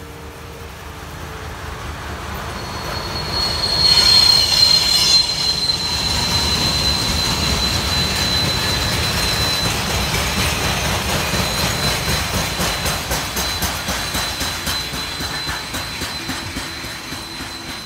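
Freight train of grain hopper wagons hauled by a Class Dv12 diesel locomotive passing close by. The sound is loudest as the locomotive goes past about four seconds in, then the wagons keep rolling with a steady high-pitched wheel squeal and regular clicks of wheels over the rail joints.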